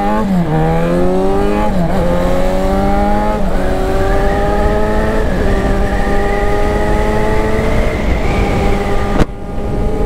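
Yamaha XJ6's inline-four engine pulling hard under acceleration, the revs climbing and dropping at each of several quick upshifts, then rising steadily in a higher gear.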